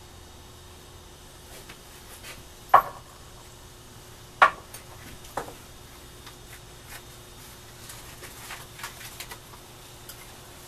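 Knocks and clicks from handling a can of PVC cement and a pipe end cap on a workbench: two sharp knocks about three and four and a half seconds in, a softer one a second later, then a few light clicks.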